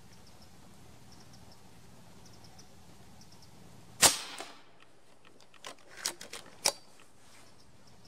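A .22 (5.5 mm) Reximex Throne PCP air rifle firing a single shot about four seconds in, a sharp crack, followed a couple of seconds later by a few quieter clicks.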